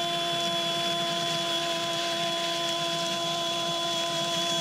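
Sports commentator's long goal call, a single held 'gooool' at one steady pitch for several seconds, over the stadium crowd's noise.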